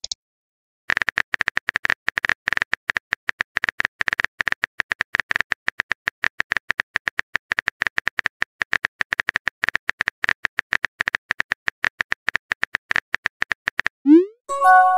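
Keyboard typing sound effect of a texting-story app: rapid, irregular clicks several a second. About fourteen seconds in, a short rising pop and a brief chime of a few tones mark the message being sent.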